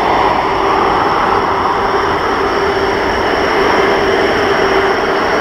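Jet engines of an Airbus A330-243, Rolls-Royce Trent 700s, running steadily as the airliner turns onto the runway. It is a loud, even rushing noise with a steady low drone and a thin high whine over it.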